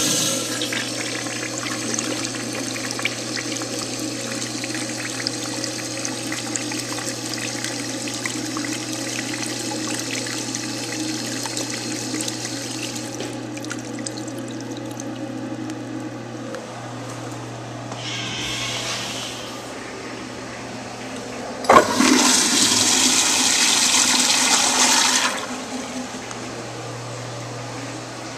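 Kohler urinal flushing: water rushes over the urinal screen for about thirteen seconds, then fades away. After a brief second rush of water, a louder flush starts suddenly about 22 seconds in and runs for some three seconds. A steady low hum runs underneath.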